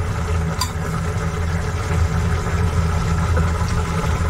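Steady low mechanical hum, like an electric motor running, with one light utensil clink about half a second in.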